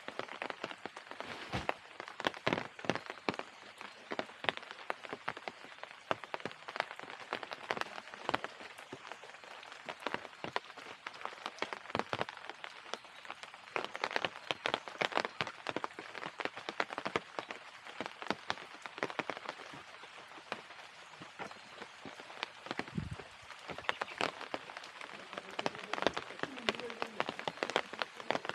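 Rain falling on hard surfaces: many small drop impacts, dense and irregular.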